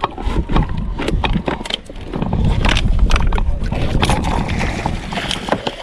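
A hooked blacktip shark being hauled up the side of a small outrigger boat: splashing and a run of sharp knocks against the hull. A heavy low rumble of wind on the microphone sets in about two seconds in.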